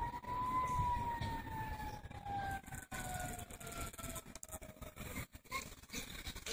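Steam locomotive whistle sounding one long blast. Its pitch tops out about half a second in, then sags slowly as the blast goes on.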